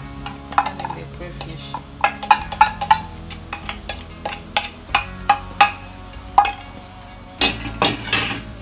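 Small metal bowl knocked against a metal cooking pot as ground crayfish is emptied into the soup: a string of sharp, ringing clinks, with a denser clatter near the end.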